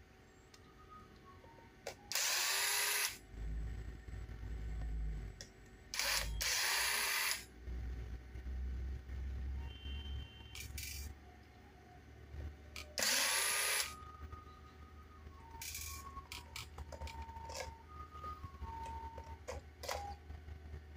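Small electric screwdriver running in several bursts of about a second each, its motor whirring up at each start, as it drives screws into the RC car's plastic gearbox and motor mount. Light clicks of plastic parts being handled come between the bursts.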